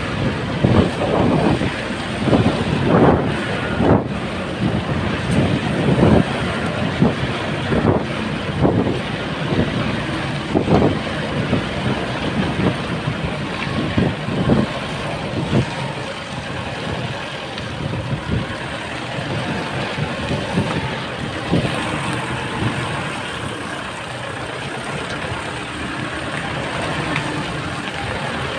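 Toyota Hilux pickup driving over a rutted dirt and mud road: a steady rumble of engine and tyres, with frequent jolts and knocks over the first half that ease off later.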